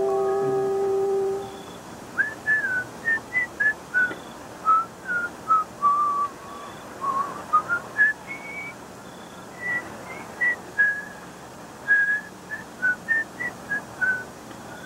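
A held musical chord ends about a second and a half in. After it, someone whistles a tune in many short, separate notes that wander up and down in pitch.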